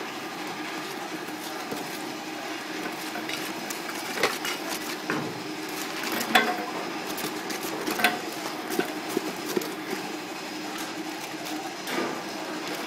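A stirrer mixing thick green two-part wire-rope socketing resin in a cut-down plastic jug, with irregular scrapes and sharp knocks against the container walls over a steady low hum.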